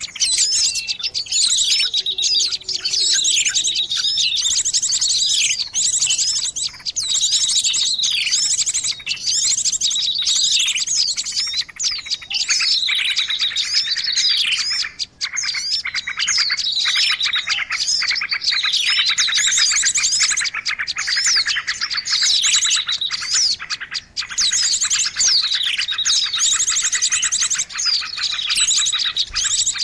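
Songbird singing continuously: rapid chirps and fast trills, with repeated falling whistled notes, the kind of bird call recording played to lure birds.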